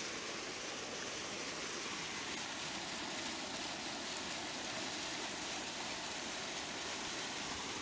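Steady rush of water pouring over a low concrete spillway and churning into the river below.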